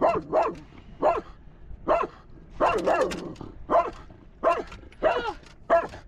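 A dog barking in short, sharp barks, about nine of them spaced under a second apart. These are alarm barks at a sea lion that has surfaced close by.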